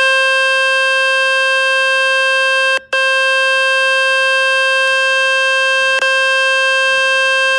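A Samsung Galaxy S23 Ultra's loudspeaker playing a loud, steady, buzzy tone from a speaker-cleaning website, meant to shake water and dust out of the speaker grille. The tone breaks off for a moment about three seconds in, and there is a click about six seconds in.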